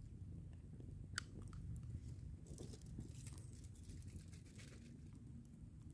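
Small wood campfire burning faintly, with scattered sharp crackles and pops, one louder about a second in.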